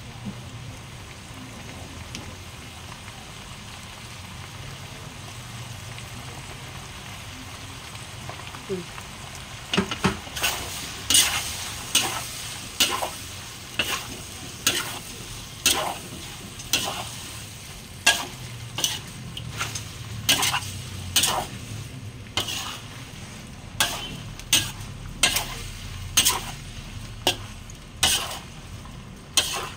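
Food sizzling steadily in a stainless steel wok. From about ten seconds in, a metal spatula scrapes and knocks against the wok a little more than once a second as the food is stir-fried.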